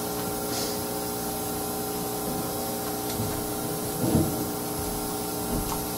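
Steady electrical hum and hiss from a PA system, with a faint knock about four seconds in.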